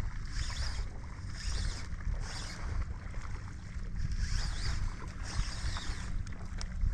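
Wind rumbling on the microphone, with water sloshing and lapping around a wading angler's legs in shallow bay water.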